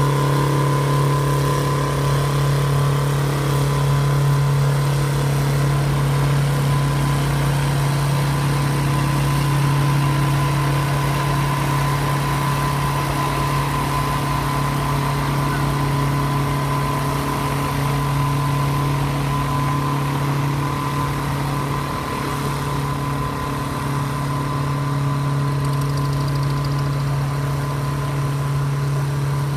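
Detroit Diesel two-stroke engine of an Oliver pulling tractor running steadily at one engine speed, with a steady high whine over its low note.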